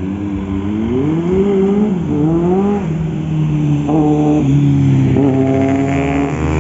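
Vehicle engines revving as traffic passes close by, the pitch climbing and dropping a few times in the first three seconds, then holding fairly steady.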